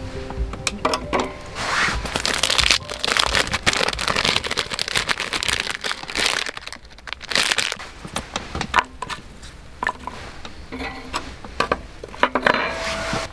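Hands handling a shichirin charcoal grill: its wire grates are lifted out and set back with a dense run of clinks, scrapes and rustling as fire starter is placed under the bottom grate.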